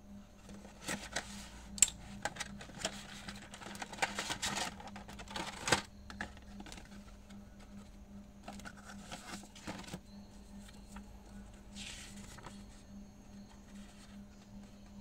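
A cardboard toy box being opened by hand: a hobby knife slits the tape seal, then cardboard flaps and a clear plastic blister tray are handled with irregular clicks, scrapes and rustles, loudest in the first few seconds. Later, softer paper rustling as the instruction leaflet is unfolded, over a steady low hum.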